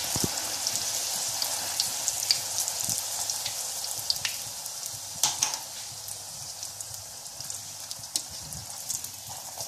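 A puri deep-frying in hot oil in a wok: a steady sizzle with scattered crackles and pops, getting gradually a little quieter.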